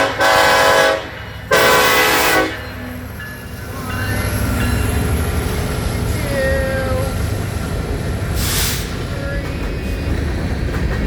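Air horn of a BNSF EMD SD70ACe diesel locomotive sounding two blasts of about a second each. A steady low rumble of the locomotives and empty coal cars rolling past then builds and holds.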